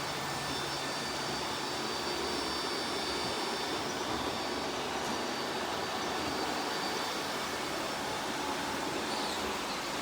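Several robot vacuums running at once: a steady whir of fans and brushes with a thin high-pitched whine over it.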